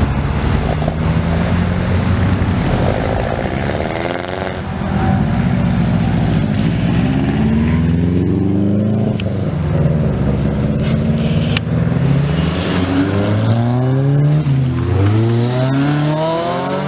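A string of modified cars accelerating hard past one after another. Their engine notes climb and drop again and again as they rev up and change gear.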